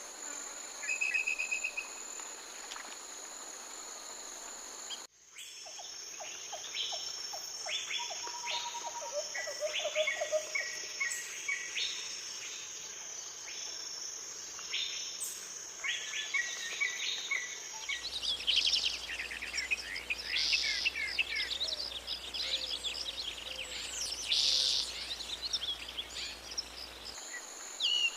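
Birds calling and singing with short chirps and quick trills over a steady, high-pitched insect drone. The recording changes abruptly twice, about five seconds in and about two-thirds of the way through, where the calls become a denser chatter.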